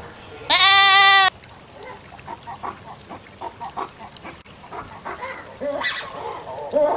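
Goat bleating: one loud, long, level bleat about half a second in, followed by fainter, shorter calls.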